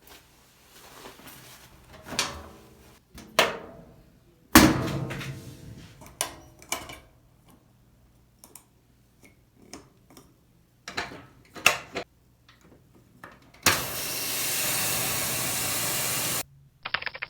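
Washing machine being loaded: a string of knocks and clunks, with one loud bang that rings on about four and a half seconds in. Near the end comes a steady hiss of about three seconds.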